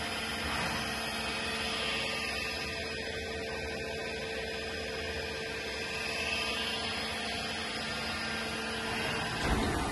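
Doosan Puma 2500 XLY CNC lathe running a program, its spindle turning at 2000 rpm: a steady machine hum with two held tones.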